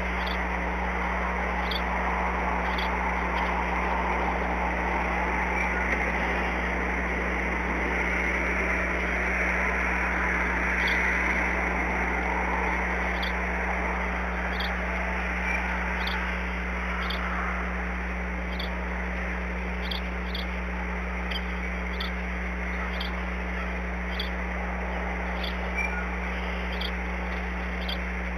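Steady rain falling on the nest and surrounding branches, an even hiss that swells slightly near the middle, over a steady low hum, with faint short ticks about once a second.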